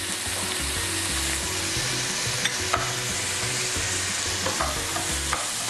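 Meat, onion and carrot frying in a pan in fat rendered from a piece of beef suet, a steady sizzle. A couple of light clicks about two and a half seconds in.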